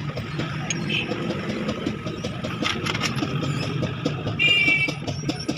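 Steady low hum of an engine running nearby, with light metallic clicks and taps of hand tools on the cylinder head's rocker arms during tappet adjustment. A brief high squeak comes about four and a half seconds in.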